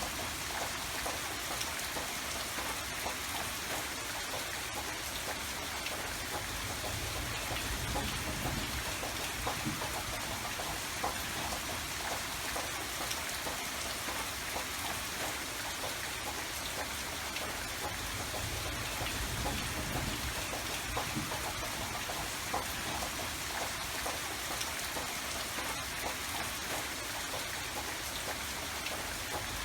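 Steady rain falling, with the patter of many individual drops striking a surface and a low rumble that swells now and then.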